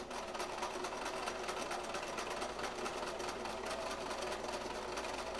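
Brother electric sewing machine running at a steady speed, its needle stitching through thick layers of canvas with rapid, even strokes.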